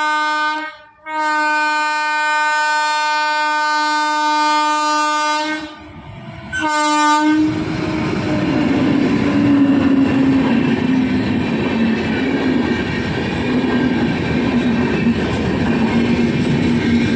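Indian Railways WAP-class electric locomotive sounding its horn in three blasts: a short one, a long one of about four seconds, then another short one. Then the locomotive and its red coaches pass close by with a loud, steady clatter of wheels on the rails.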